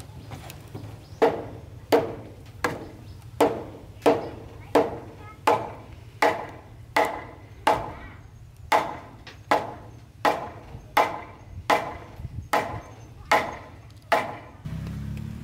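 A tool striking wood over and over: about eighteen sharp, even blows, roughly one every 0.7 seconds, each with a short ring.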